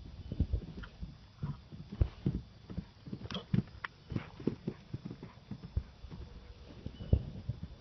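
Hoofbeats of a horse cantering on grass and over a jump: a run of uneven, dull thuds, with a few sharper strikes a little past halfway.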